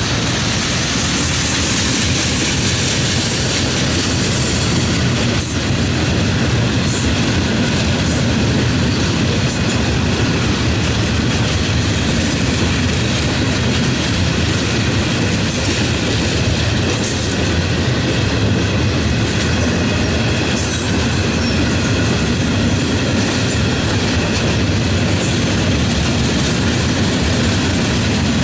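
Freight cars loaded with steel coils rolling steadily past close by: a continuous rumble and clatter of steel wheels on the rails.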